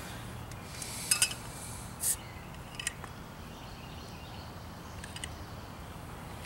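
A few sharp metallic clicks and clinks from hands working at the cap of a 22-ounce glass beer bottle. The loudest cluster comes about a second in, with a brief ring, and a few lighter ticks follow over a steady low background.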